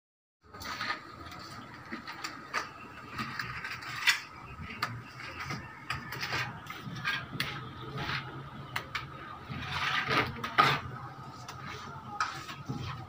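Steel plastering trowel scraping and tapping as wet cement mortar is spread onto the edge of a concrete hollow-block window opening: a run of short, irregular scrapes and clicks.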